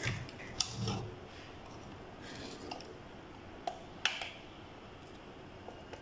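Handling noise from the plastic housing of a coffee grinder being turned over in the hands: a few sharp clicks and knocks of plastic and metal, with the loudest about four seconds in.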